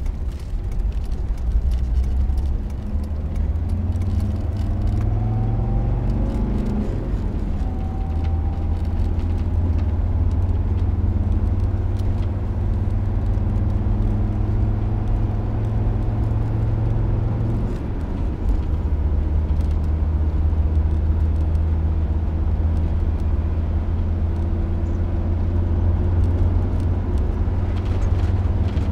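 A road vehicle's engine running steadily with a deep drone. Its pitch shifts about a quarter of the way in and again a little past the middle, with a brief rising whine near the start.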